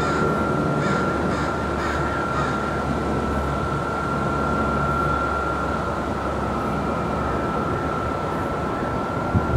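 Steady low hum of vertical-lift railroad bridge machinery with a constant high whine. For the first two seconds or so a rapid repeating sharp signal sounds, about two to three strokes a second. There is a short thump near the end.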